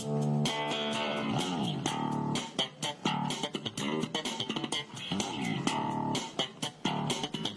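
Background music led by guitar and bass guitar, with a steady beat and sliding notes.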